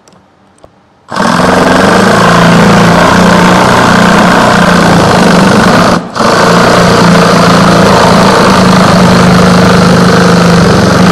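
Black & Decker EVO 20 V cordless multi-tool with its jigsaw attachment, cutting a curve in wood: a loud steady buzz that starts about a second in and stops for a split second near the middle before running on.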